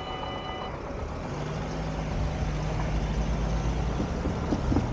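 A level-crossing warning bell rings and cuts off about half a second in. Then the low hum of car engines and tyre noise builds as road traffic moves up to the reopening crossing.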